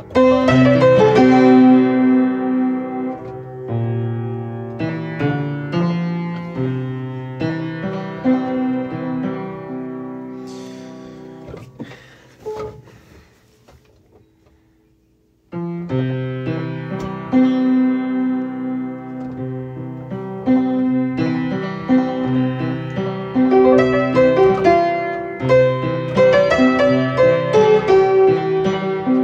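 Solo piano music, chords and melody notes. It fades away to near quiet with a faint rustle before the piano comes back in suddenly about halfway through.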